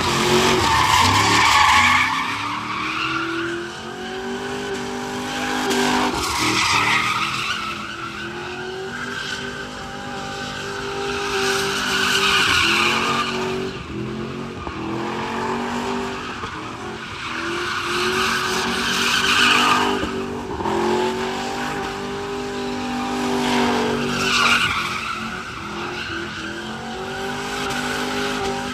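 Chevrolet Silverado pickup doing donuts. The engine revs rise and fall in long swells about every five to six seconds, and the spinning tyres squeal at each peak.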